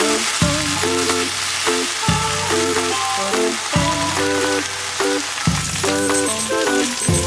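Food sizzling as it fries in a pan, a steady crackling hiss, under background music with repeating chords and a bass note about every second and a half.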